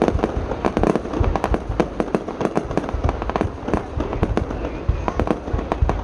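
Aerial fireworks exploding in a dense, continuous barrage: many sharp bangs and cracks a second, over a deep booming rumble.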